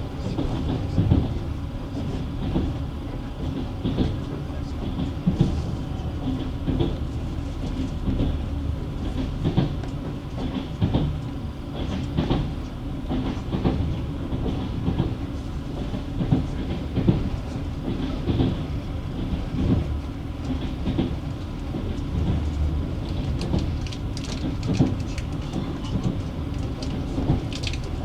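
Passenger train wheels clattering over rail joints at speed, heard from inside the carriage: a steady running rumble broken by repeated short wheel knocks.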